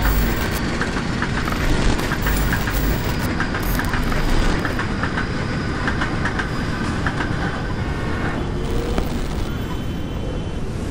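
Continuous rumbling, clattering noise with many rapid clicks, dense and steady, thinning a little near the end.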